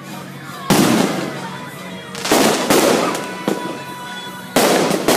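Aerial firework shells bursting, five sharp bangs each trailing off. One comes less than a second in, two close together just past two seconds, and two more near the end.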